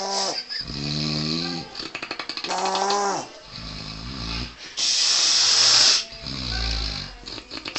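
A sleeper snoring: a string of rattling, pitched snores, with a long hissing breath about five seconds in that is the loudest sound.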